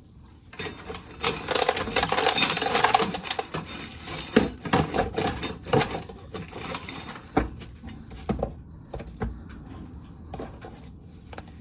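Dried corn being shelled off the cob, the kernels clattering and clicking. The clatter is dense about one to three seconds in, then breaks into scattered single clicks.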